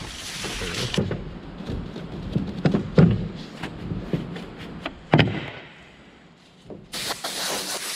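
Compressed-air blow gun blasting dust off a freshly roughened fiberglass wingtip seam: a hissing burst at the start and another near the end. Knocks and taps of handling come in between.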